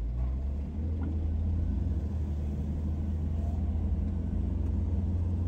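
Low, steady rumble of a car driving, heard from inside the cabin; it comes up suddenly at the start and holds.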